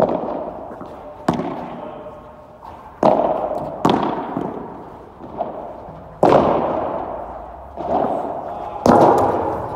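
Padel rally: about eight sharp pops of the ball off the rackets, court and walls, irregularly about a second apart, each ringing out in a long echo under the domed covered court.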